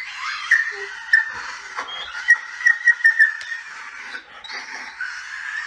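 A dog whining in high, squeaky cries while play-biting a person's hand, with a quick run of short squeaks in the middle.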